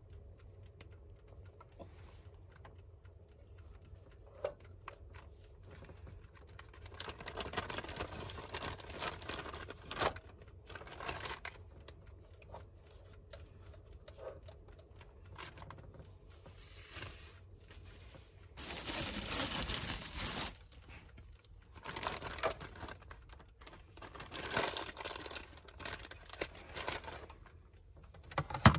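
Seasoned raw chicken being handled with plastic-gloved hands and laid into an air fryer basket: scattered rustling, crinkling and soft clicks and knocks. About two-thirds of the way in there is a louder rush of noise lasting about two seconds, and a sharp knock comes right at the end.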